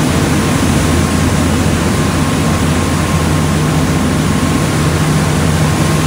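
Catamaran's diesel engines droning steadily under a loud, even rush of wind and water from the churning wake.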